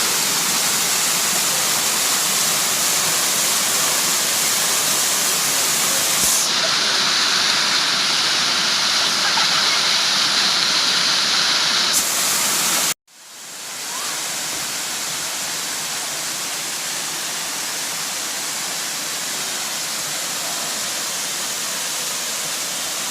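A waterfall's steady rush of falling water. It cuts out for a moment about thirteen seconds in and comes back a little quieter.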